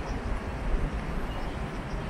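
Steady outdoor rumble, heaviest in the low end and fluttering unevenly, with a fainter hiss above it and no distinct events.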